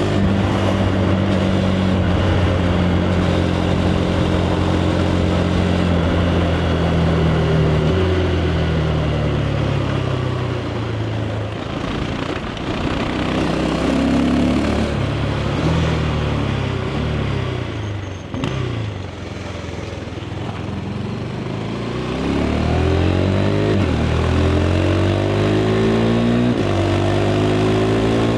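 KTM 390 Adventure's single-cylinder engine through its stock exhaust, holding steady revs at first, then falling away as the bike slows. From about two-thirds of the way in it pulls up through the gears, the pitch climbing and dropping back at each quick shift, with wind rush underneath.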